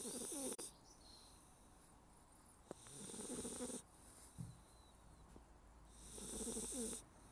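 Labrador retriever puppy snoring: three rasping snores, each about a second long and roughly three seconds apart.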